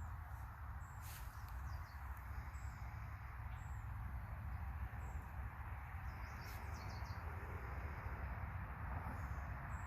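Outdoor ambience with small birds chirping: a short high chirp repeats about once a second, with a couple of louder bird calls about a second in and past the middle, over a steady low rumble.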